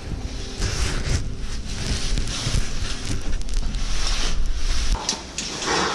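Rustling and scraping of caving clothing and gear against rock in a narrow shaft, with many small clicks and a low rumble of handling noise on the microphone that stops about five seconds in.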